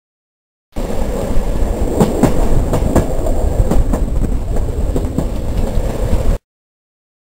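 Polish PKP fast train's carriages running on the rails, heard from an open window of the train: a steady rumble with irregular sharp clicks of the wheels over rail joints and points. The sound starts suddenly about a second in and cuts off abruptly about a second before the end.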